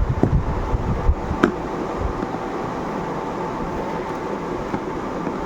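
A steady fan-like whirring hum, with wind rumbling on the microphone during the first two seconds and a single sharp click about one and a half seconds in.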